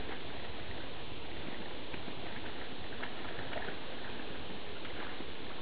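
Steady rush of flowing creek water, with a few faint small splashes and rustles as a golden retriever puppy swims to the bank and scrambles out onto the weeds.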